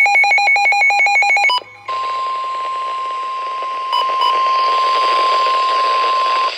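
Emergency Alert System weather alert tones heard over a radio. A fast pulsing electronic beep, then after a short break a steady single-pitch alarm tone with a hiss of radio static beneath it: NOAA Weather Radio's 1050 Hz warning alarm tone, which signals that a warning is about to be read. Two quick beeps cut into the tone about four seconds in, and it stops shortly before the end.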